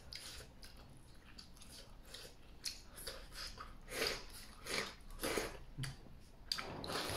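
Close-up eating sounds: a person chewing food and shovelling it from a ceramic bowl with chopsticks, in a string of short, irregular mouth noises.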